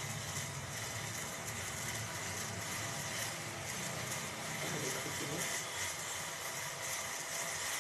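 Steady rushing rumble of a gas stove burner heating a stainless steel saucepan of water, with the faint hiss of the water starting to simmer towards the boil.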